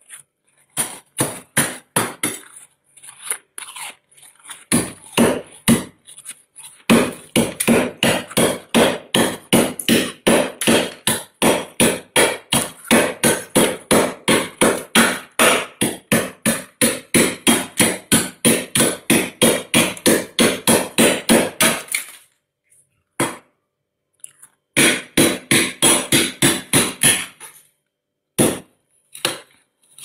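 Metal spoon scraping thick freezer frost in quick repeated crunchy strokes, several a second. A long fast run stops about three-quarters of the way through, and a short burst of strokes follows after a pause.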